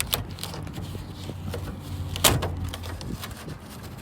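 Clicks and a sharp knock about two seconds in as the 1971 Camaro's door and window mechanism are worked by hand, over a steady low hum.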